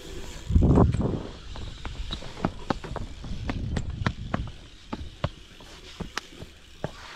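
BMX bike rolling across a concrete skatepark deck: a loud low rumble about half a second in, then a run of sharp, irregular clicks and ticks, a few a second.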